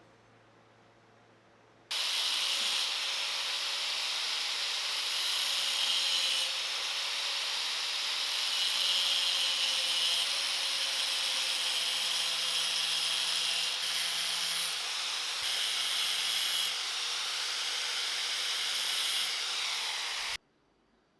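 An angle-grinder-driven power tool running under load, a steady harsh hiss of cutting or grinding over a faint motor whine. It starts abruptly about two seconds in and stops abruptly near the end.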